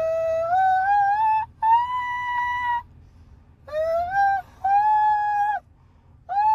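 A person singing wordless, high falsetto notes: four long held notes that slide up and then hold, with short breaks between them, and a fifth starting near the end.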